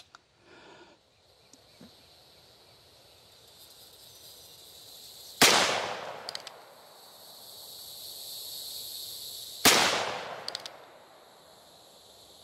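Two shots from a Ruger Single-Six revolver firing .22 Magnum rounds, about four seconds apart. Each crack has a short echoing tail and is followed by a few faint ticks.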